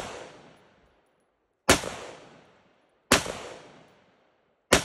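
AR-15 rifle firing 5.56 rounds: three shots about a second and a half apart, each followed by a fading echo.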